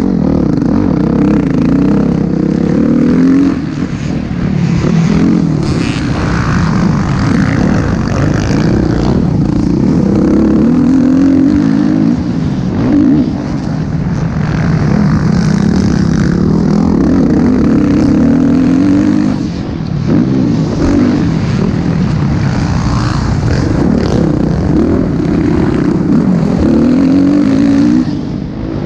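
Dirt bike engine heard from on board during a motocross race. It is loud and keeps revving up and easing off as the rider works the throttle. The throttle is cut briefly a few times along the way.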